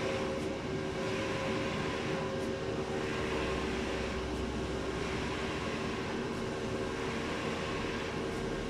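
Challenger FY-3286J eco-solvent large-format printer running: a steady machine hum with several fixed tones, and a hiss that swells and fades about once a second as the print carriage shuttles across.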